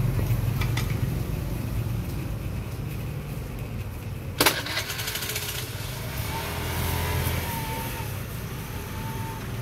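Low steady engine hum of street traffic, with one sharp knock about four and a half seconds in.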